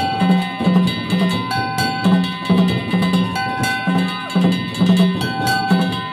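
Danjiri festival music: a big drum beaten in a steady rhythm of about two strokes a second, with clanging hand gongs and high held tones over it.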